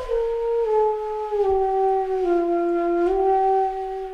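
Background music: a slow, flute-like wind-instrument melody of long held notes, stepping down and back up in pitch.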